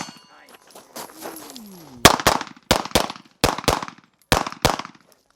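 Pistol fired in quick pairs during a competition stage: after a short pause, four double-taps (eight shots) about two seconds in, each crack trailing off briefly.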